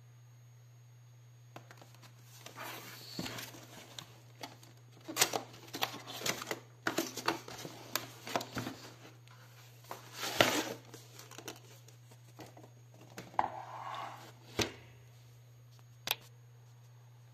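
A cardboard box and its wrapping being opened by hand: irregular rustling, tearing and scraping, loudest about five and ten seconds in. A couple of single knocks come near the end as the red plastic retractable stool is taken out and set down, over a steady low hum.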